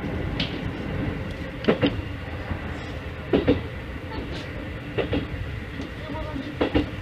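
Keikyu 1500-series electric train running, heard from inside the train: its wheels clack over rail joints in pairs about every second and a half, over a steady running rumble.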